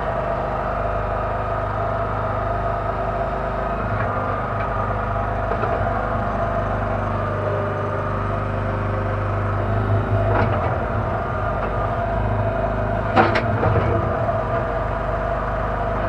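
Kellfri towable mini backhoe's engine running steadily while the boom and bucket work, with a couple of short knocks in the second half, the loudest a sharp one near the end.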